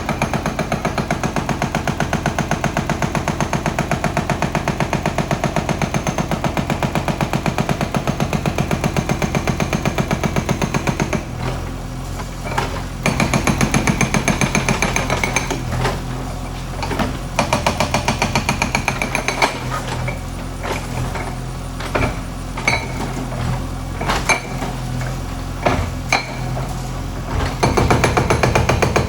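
Hydraulic breaker on a JCB backhoe hammering in rapid, even blows. It stops about eleven seconds in, leaving the backhoe's diesel engine running with scattered knocks, hammers again briefly, and starts up again near the end.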